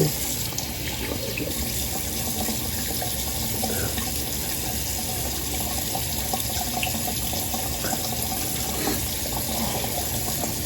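Sink faucet running steadily while a face is rinsed off under it, washing away a facial cleanser.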